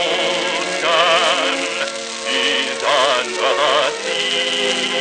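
Musical number from a 1929 sound-on-disc film soundtrack: orchestral music with a high melody held in long notes with wide vibrato.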